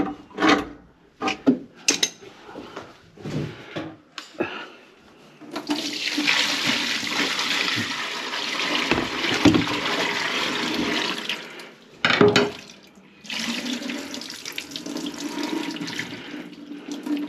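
A few knocks and clatters, then a kitchen faucet running steadily into a clogged sink. The water stops briefly about two-thirds of the way through and runs again, a little quieter.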